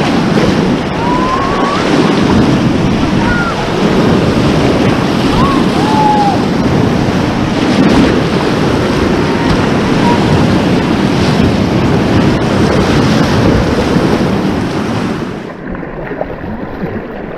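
Loud rushing of the Ganges river's water mixed with wind buffeting the microphone, steady, then thinning and dropping about fifteen seconds in.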